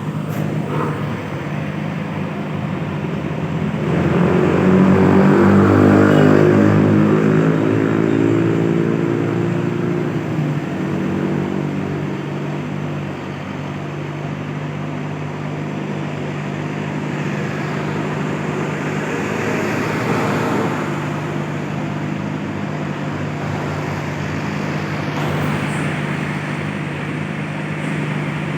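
Excavator's diesel engine running steadily, revving up about four seconds in and easing back down over the next several seconds.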